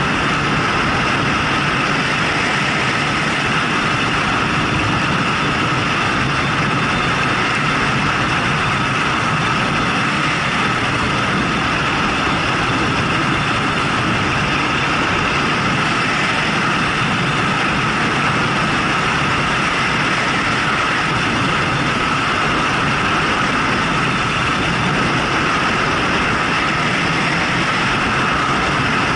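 Honda CB750 motorcycle cruising at a steady pace: a steady engine drone mixed with wind and road noise, with no change in pitch or level.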